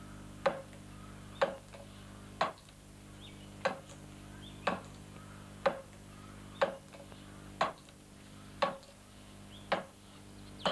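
Woodcarving blows: a carving tool is struck into wood in evenly spaced sharp knocks, about one a second, each with a short ring.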